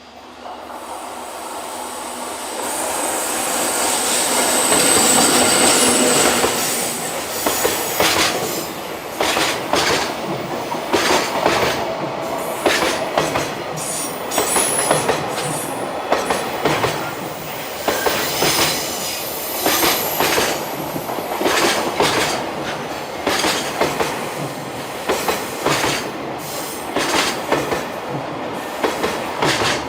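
Freight train passing on a single-track line. The sound builds to its loudest about five seconds in, then the wagons' wheels clack over the rail joints in an uneven rhythm. Thin, high wheel-flange squeal comes through at times.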